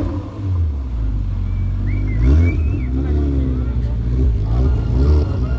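Car engine idling with a steady low drone, under nearby voices.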